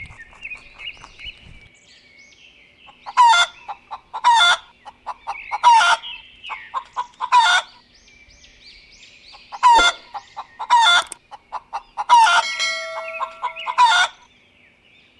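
A fowl, a chicken-like bird, giving short loud calls, about eight of them spaced a second or so apart, over steady faint chirping of small birds.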